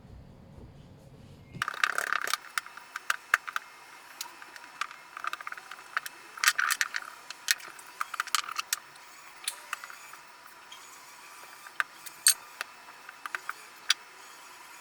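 Irregular light clicks, taps and short scrapes of kitchen items being handled on a hard surface, busiest in the first half, over a faint steady high hum.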